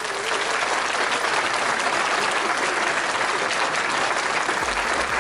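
Applause from a crowd, dense and steady, with a low musical beat coming in near the end.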